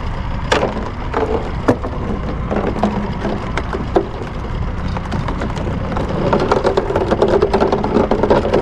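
Sharp knocks and clatter of fishing gear being handled in a small boat at sea, over a steady low rumble of wind on the microphone. Near the end comes a quicker run of rattling clicks.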